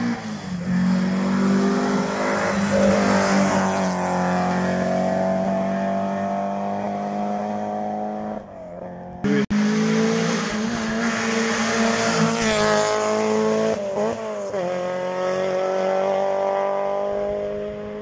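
Historic rally car engines revving hard under full acceleration, the pitch climbing and dropping with each gear change. The sound cuts off abruptly about halfway and picks up again with another car running at high revs.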